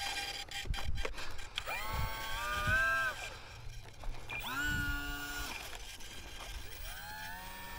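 Small electric motor and propeller of an RC plane throttling up in three short bursts, each a quickly rising whine held for about a second and then cut, as the plane tries and fails to take off, which the builder puts down to it being too heavy for this motor. A few clicks come in the first second or so.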